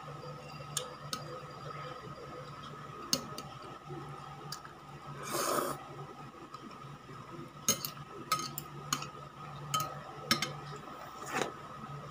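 Eating noises: chopsticks clicking and tapping against a ceramic bowl several times, and a longer slurp of spaghetti noodles about five seconds in, the loudest sound, over a steady hum.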